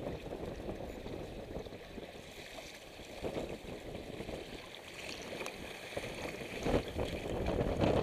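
Strong wind rumbling on the microphone over choppy water slapping and splashing against a sailing kayak's hull, with a few louder splashes near the end.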